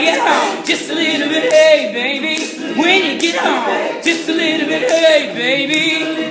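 Male a cappella group singing a soul song, a lead voice over the group's backing vocals, with a crisp beat about twice a second.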